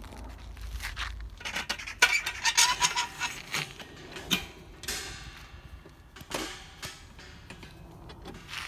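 Metal irrigation header gate being closed by hand: scattered knocks and scrapes, with a quick run of ringing metal clinks about two to three seconds in.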